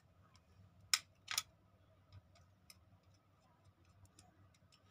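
Two sharp plastic clicks about a second in, a fraction of a second apart, from a wall light switch being handled, followed by a few faint ticks.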